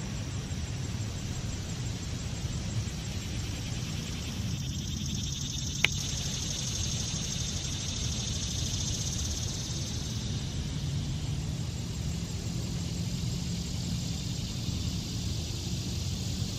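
Steady outdoor background rumble, with a high, fine hiss over it in the middle stretch and a single sharp click about six seconds in.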